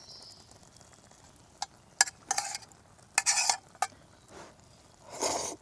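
Eating utensil clinking and scraping against a pot or bowl: a couple of sharp clicks, then three short scraping strokes.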